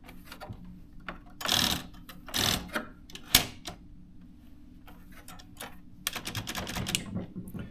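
Portable typewriter's carriage controls worked by hand: a few clunks and a sharp click as the full carriage lock is operated, then a quick run of rapid clicks near the end.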